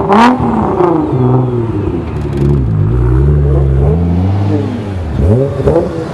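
Nissan GT-R twin-turbo V6 engines revving and pulling away, the pitch climbing and dropping several times.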